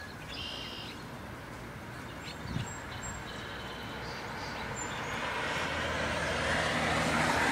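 Short high house finch chirps in the first few seconds, then a passing road vehicle whose noise grows steadily louder toward the end.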